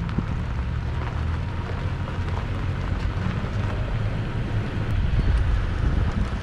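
Wind rushing over a microphone mounted on the outside of a 2020 Toyota Tacoma pickup as it drives, over a steady low rumble of road and engine noise.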